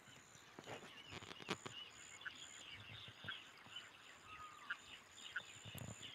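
Faint rural dawn ambience: scattered short bird chirps and a brief whistle, over a thin, high insect call pulsing about twice a second.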